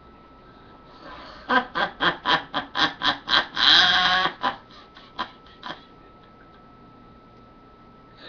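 A man laughing: a run of about a dozen short rhythmic bursts over roughly four seconds, with one longer held note in the middle, trailing off into a few scattered chuckles.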